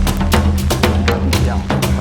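Background music with a fast percussive beat over a steady bass line.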